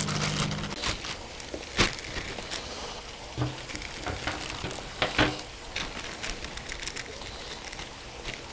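Thin plastic UMAi dry-aging bag crinkling and crackling as it is handled with a beef loin inside and its open end is smoothed flat, with sharper crackles about two seconds in and again around five seconds.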